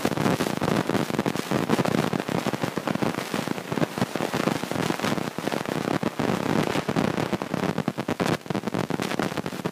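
Noise inside a moving car, heard on a phone's microphone as dense, irregular crackling with a low rumble.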